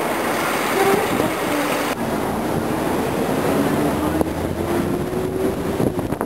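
City traffic and the tour bus's own running noise heard from its open upper deck: a steady rumble and hiss, with an engine tone rising slowly through the middle. An abrupt change in the sound about two seconds in.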